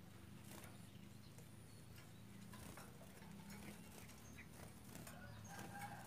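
Near silence: a faint steady low hum with light, scattered clicks.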